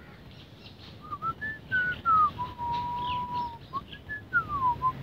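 A person whistling a short tune: a few notes that rise and fall, then one long held note, then a falling phrase near the end.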